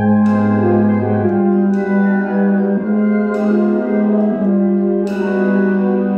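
Concert wind ensemble playing loud, with full brass holding a sustained chord that comes in suddenly, a lower bass note dropping out after about a second, and sharp percussion accents about every second and a half.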